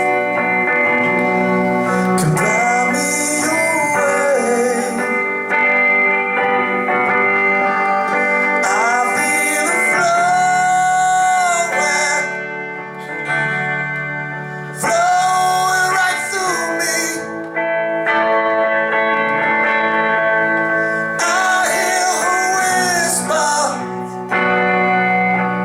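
Live band music on acoustic guitars, with a man's voice holding long, wavering notes without clear words.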